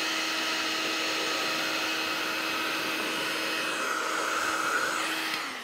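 Electric heat gun running steadily, its fan blowing with a steady hum, heating the end of a PVC pipe to soften it for flaring. It is switched off near the end and winds down.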